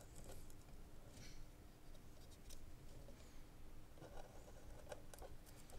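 Faint scratching of a small palm gouge cutting short strokes into a wooden bowl's surface, a few soft scrapes and light clicks scattered through.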